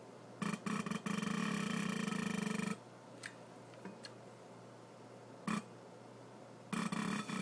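Rebuilt Mercedes diesel injector with a new Monark nozzle firing on a hand pop tester: a buzzing spray burst lasting about two seconds, a short single pop a few seconds later, then another buzzing burst near the end.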